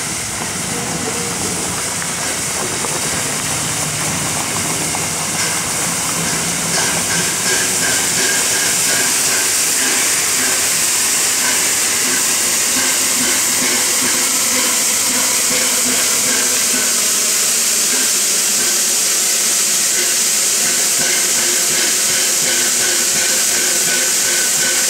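Steam hissing from LNER A4 Pacific No. 4464 Bittern, a dense high hiss that grows louder over the first eight seconds or so and then holds steady.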